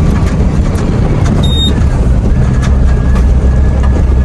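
Truck engine and road noise heard inside the cab while driving, a steady low drone. A short high beep sounds once about a second and a half in.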